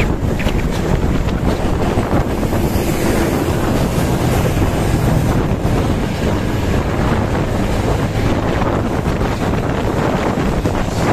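Steady, loud wind noise buffeting the microphone, with the rumble of road traffic underneath.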